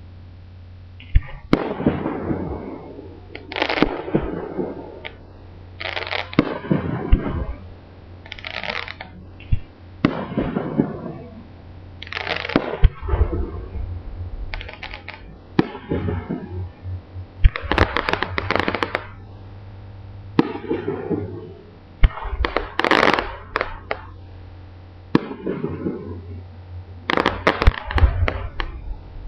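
Aerial fireworks display: shells bursting in sharp bangs, a new burst every one to two seconds, each followed by about a second of crackle. A steady low hum runs underneath.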